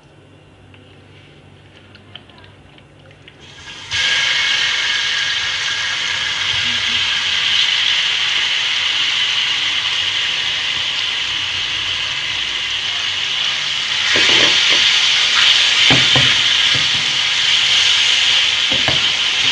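Marinated chicken pieces hitting hot oil in a non-stick frying pan: a loud sizzle starts suddenly about four seconds in and holds steady. In the last few seconds a spatula stirs and scrapes the pieces in the pan, and the sizzle grows louder.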